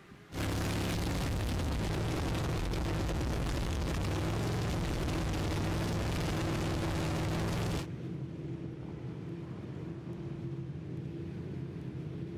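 Steady engine drone under heavy rushing noise, its pitch holding level. It cuts in abruptly and drops sharply to a quieter level about eight seconds in, with the same drone carrying on underneath.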